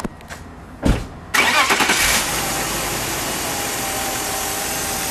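Two short thumps, then about a second and a half in the BMW E39's six-cylinder engine cranks briefly, catches and settles into a steady idle, now running after its cylinder 5 misfire was repaired.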